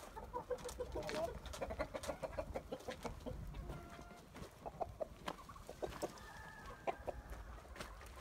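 Chickens clucking: many short calls one after another, with a couple of longer held notes around the middle, and scattered sharp clicks.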